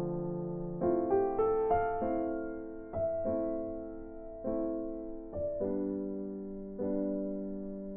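Background music: slow electric piano chords, with a short run of quick rising notes about a second in.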